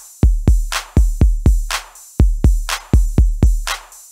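Background music: an electronic drum-machine beat of deep kick drums, with a hissy snare hit about once a second.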